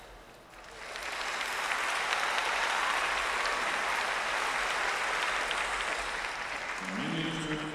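Audience applause in the arena, swelling up about a second in and carrying on steadily, with a man's voice starting to speak near the end.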